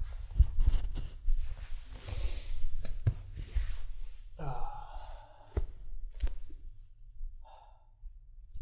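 A man's breathing and sighs close to the microphone, with a short vocal sound about halfway through. Over a low rumble come soft thumps, clicks and clothing rustle on the microphone.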